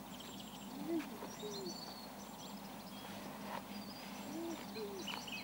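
Soft, low cooing calls from a bird, in two pairs of short rise-and-fall notes. Faint high chirps from small birds sit behind them.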